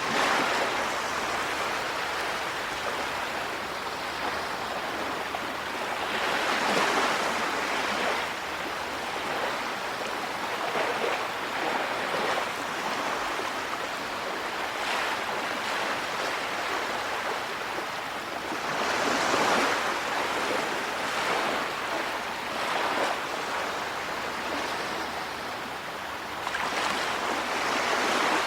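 Ocean waves on a shore: a continuous wash of surf, swelling louder as breakers come in about every six to twelve seconds and fading between them.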